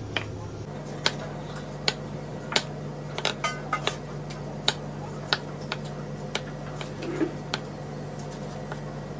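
Chef's knife cutting the hard rind off a pumpkin, the blade knocking sharply on a plastic cutting board about once or twice a second, with a quick cluster of cuts in the middle. A steady low hum runs underneath.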